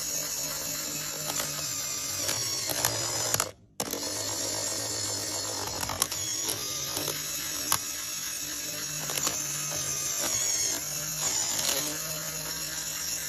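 LEGO Technic gears driven by a small electric motor, grinding with a steady whir and scattered sharp clicks. The sound cuts out briefly about three and a half seconds in, then resumes.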